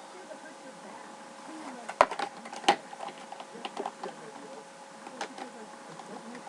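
Toy packaging and a Funko Pop figure being handled: scattered clicks and light knocks of cardboard and plastic, the two sharpest about two seconds in, over a faint steady hum.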